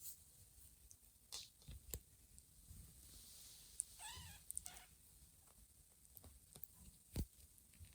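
A young kitten gives one short, faint, high mew about halfway through. A few soft clicks come before and after it.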